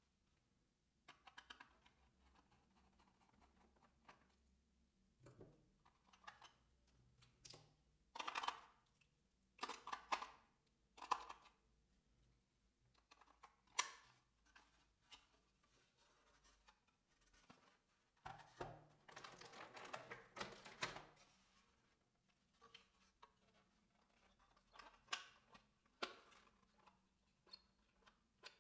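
Hard plastic toy parts and a plastic packaging tray being handled: scattered clicks and taps as pieces are picked up, fitted and set down, with a longer stretch of plastic rustling about two-thirds of the way through.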